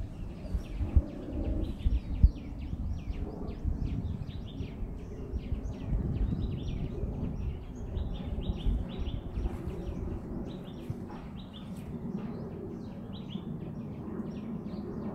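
Outdoor birdsong: many birds chirping in quick, overlapping short calls over a steady low rumble, picked up by a phone's microphone. A few sharp knocks stand out in the first couple of seconds.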